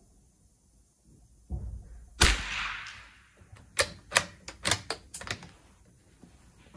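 Single unsuppressed shot from a Norinco .22 LR rifle firing SK Standard Plus subsonic ammunition: one sharp crack about two seconds in with a short ring after it, preceded by a dull thump. About a second later comes a quick run of metallic clicks as the bolt is worked to eject the case and chamber the next round.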